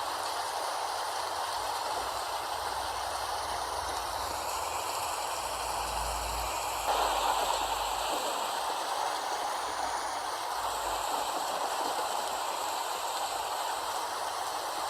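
Steady rain falling, an even hiss, with a small step up in level about seven seconds in.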